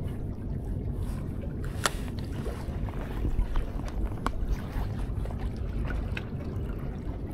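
Sea water washing against a tetrapod breakwater, a steady low rumble with some wind on the microphone. Two sharp clicks stand out, about two and about four seconds in.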